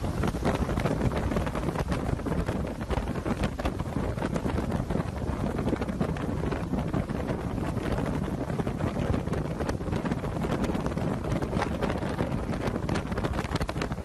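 Strong storm wind buffeting the microphone: a dense, unbroken rushing noise with constant crackling gusts.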